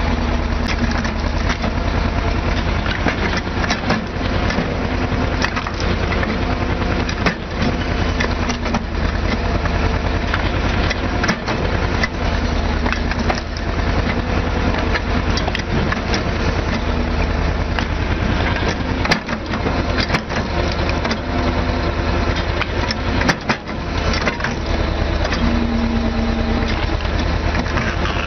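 Homemade firewood splitting machine running, its blade chopping wood blocks into kindling with frequent sharp cracks and splintering over a steady low motor drone.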